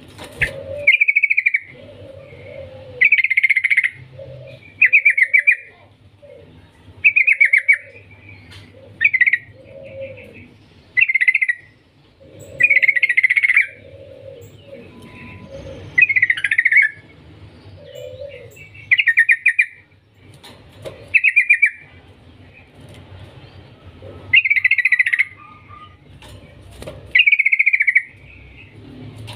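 Yellow-vented bulbul (trucukan) singing loudly in short, rapid chattering phrases, one about every two seconds.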